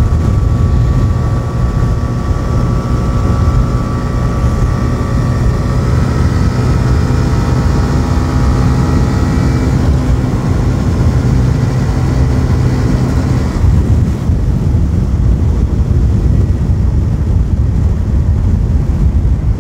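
TVS Raider 125's single-cylinder engine running steadily at cruising speed, mixed with heavy wind rumble on the microphone. About two-thirds of the way in the engine's tone fades, leaving mostly the wind rumble.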